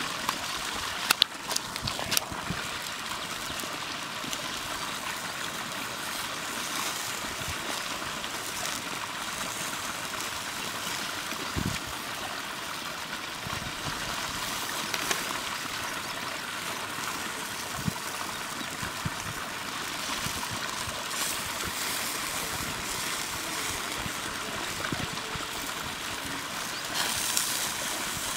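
Chicken leg pieces sizzling on a wire grill over glowing embers: a steady hiss with scattered crackles and pops from the fire.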